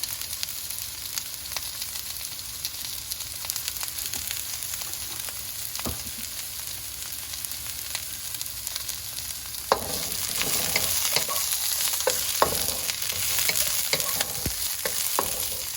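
Onions and broccoli sizzling in hot vegetable oil, stir-fried in a pan. The sizzle is steady and grows louder about ten seconds in, when the stirring utensil starts clicking and scraping against the pan.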